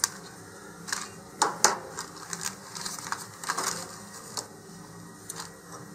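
Model rocket motor mount parts being taken out of their package and handled on a tabletop: scattered light clicks and taps, the loudest a pair about one and a half seconds in.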